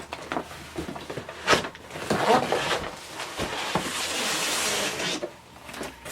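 Cardboard scraping, rubbing and knocking as a tightly wedged inner box is worked loose and slid out of a larger cardboard shipping carton, with a few sharp knocks and a long sliding scrape near the middle.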